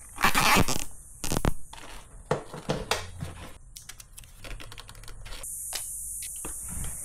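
Hands handling motorcycle dash-cam wiring and camera parts: two loud scuffing rustles in the first second and a half, then a run of small sharp clicks and rustles.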